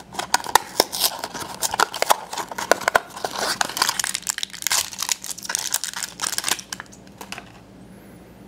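A small cardboard blind box is opened and the foil packet inside is torn and crinkled open by hand. There is a dense run of crackles and rips that stops about a second before the end.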